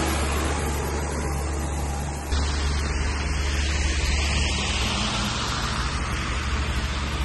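Road traffic on a wet, slushy street: a compact wheel loader's diesel passes close, then cars drive by, with a steady low rumble and a constant rushing noise. The noise gets louder about two seconds in.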